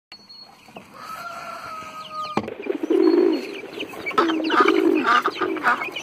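Farmyard poultry calling. One long held call comes first, then about a third of the way in a run of repeated clucking and quacking calls sets in, about two a second.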